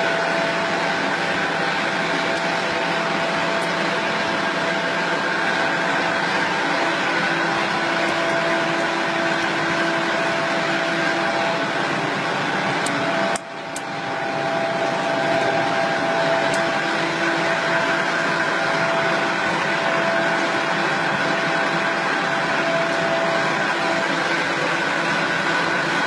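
Plastic recycling extruder running with a steady mechanical drone and a few steady whining tones. The sound dips briefly about halfway through, then builds back up.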